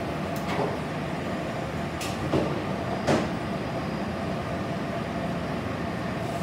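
Steady background rumble of a commercial kitchen with a few short clatters of kitchenware, the loudest about three seconds in.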